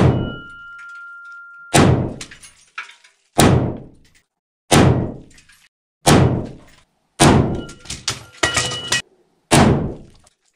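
Gunshots in a brick tunnel: about eight single shots, roughly one every second and a half, each trailing a long echo. A steady metallic ring lingers after the first shot, from the struck steel target.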